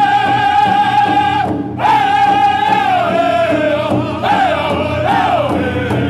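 Powwow drum group singing a contest song: several men singing high in unison over a steady beat struck together on one large shared drum. The sung line holds high, breaks off briefly about a second and a half in, then returns and slides down in pitch toward the end.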